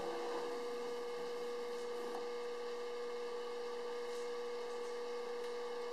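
Steady electrical hum: one unbroken mid-pitched tone over faint room noise.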